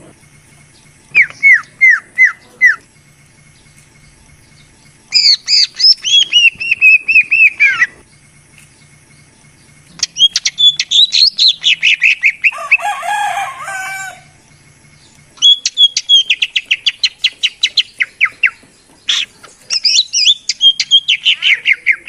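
Cucak ijo (green leafbird) song: phrases of rapid, repeated down-slurred whistles that come in bouts of a few seconds with short pauses between. A harsh, scratchy chatter runs about halfway through. This is the loud lure call used to draw wild birds or to prompt a caged bird to sing.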